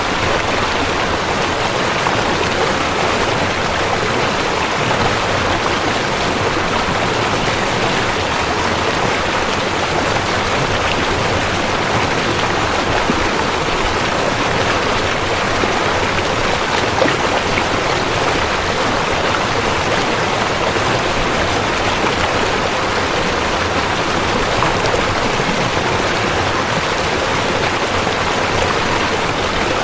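Rushing river water flowing steadily, an even, unbroken wash of sound.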